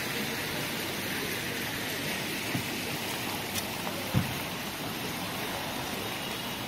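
Steady rain falling, heard as an even hiss, with a few light knocks, the loudest about four seconds in.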